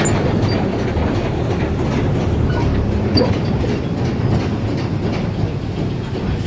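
Mine-ride train rolling along its track through a tunnel: a steady low rumble with scattered faint clicks.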